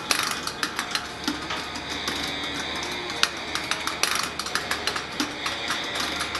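A row of electromechanical relays clicking in quick, uneven runs while a control knob is turned, over a steady hum.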